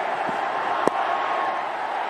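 Steady din of a stadium crowd, with a single sharp crack of bat on ball a little under a second in as the batsman plays the delivery.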